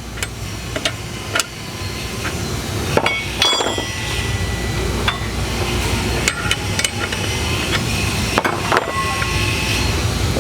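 Scattered metal clinks and knocks of a wrench working the nut on a threaded-rod compression tool fitted in a steel hose-loader swivel, as the spring tension is being backed off, over a steady low hum.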